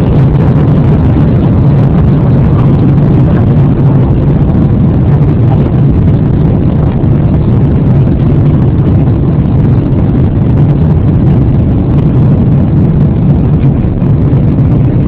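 Airliner's jet engines at takeoff thrust, a steady, loud, low-pitched drone with a rushing noise above it that holds unchanged throughout.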